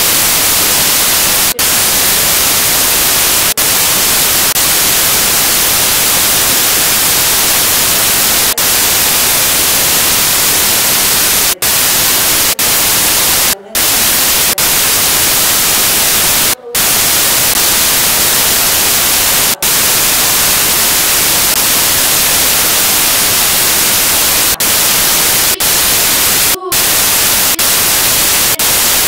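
Loud, steady static hiss, brightest in the high end, broken by a few brief dropouts about 12, 14, 17 and 27 seconds in: the noise of a corrupted, broken-up audio signal.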